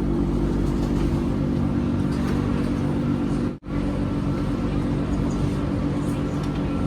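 Steady electric hum inside a BTS Skytrain EMU-B1 train car, holding one pitch throughout. It cuts out for an instant a little past halfway.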